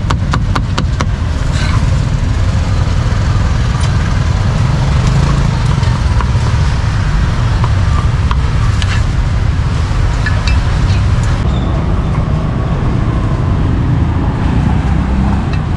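Meat cleaver chopping grilled pork on a chopping board: a quick run of chops at about five a second at the start, then single chops every second or two, over a steady low rumble of street traffic.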